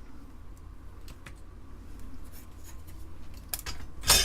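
Light ticks and scrapes of hand tools working a through-hole capacitor loose from a circuit board during desoldering, with one sharp click about four seconds in.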